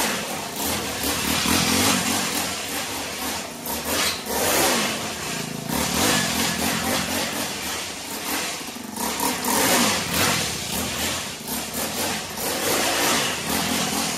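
Small single-cylinder engine of a mini-quad-based drift kart revving up and down repeatedly as the kart is driven in laps.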